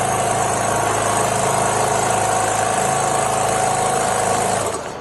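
Richpeace automatic template sewing machine running steadily at speed, stitching, with a steady hum and a held mid-pitched whine; it cuts off near the end.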